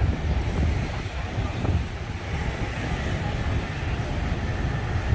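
City street traffic running past as a steady rumble, with wind buffeting the microphone.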